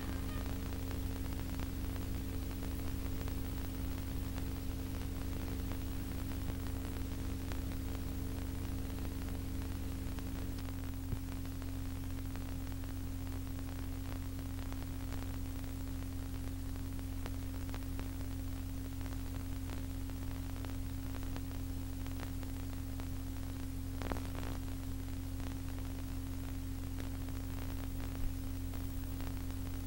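Steady electrical mains hum with hiss from the soundtrack, a few of its higher hum tones dropping out about ten seconds in, with a couple of faint clicks near the end.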